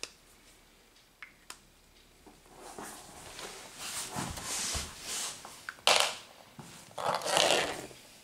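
A few light clicks, then a felt-tip marker scratching over 3 mm birch plywood in short repeated strokes as fur lines are drawn in.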